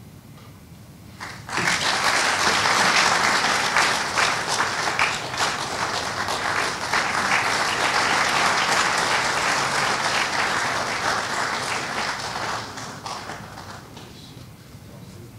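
An audience applauding, breaking out about a second and a half in, holding steady, then dying away near the end.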